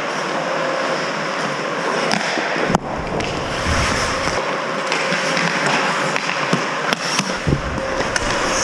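Ice hockey play: skate blades scraping and carving the ice in a steady hiss, with sharp clacks of stick and puck, one near three seconds in and another about seven seconds in.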